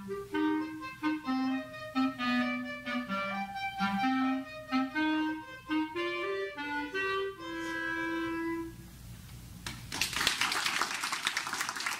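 Clarinet playing a quick melody that ends on one long held note, followed after a short pause by audience applause.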